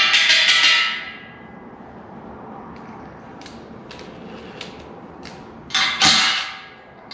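Cordless impact driver running on a bolt of a steel frame, its motor whining over rapid hammering, for about a second at the start and again in a short burst near the end.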